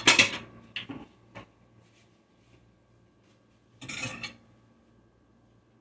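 A metal spoon clattering against a bowl and the countertop: a loud clatter at the start and a couple of lighter clicks, then a short rustling scrape about four seconds in.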